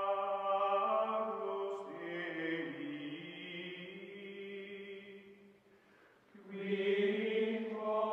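Choral chant music: voices holding long, sustained notes. They fade out a little before six seconds in and return with a new held chord about half a second later.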